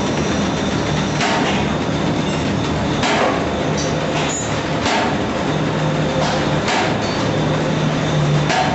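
Automatic paper bag making machine running: a steady mechanical clatter with a sharp knock about every two seconds, and a low hum that comes and goes.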